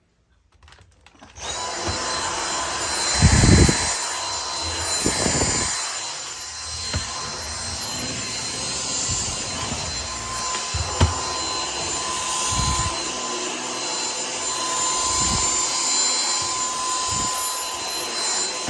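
Vacuum cleaner switching on about a second and a half in, then running steadily with a constant motor whine, with a few low thumps as it is moved about.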